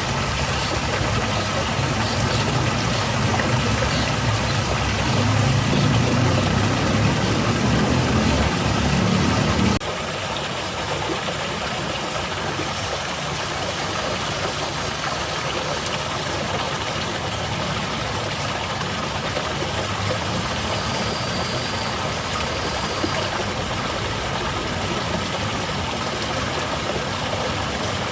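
Steady rushing and splashing of a small garden waterfall. A heavier low rumble underlies it for the first ten seconds or so and stops abruptly.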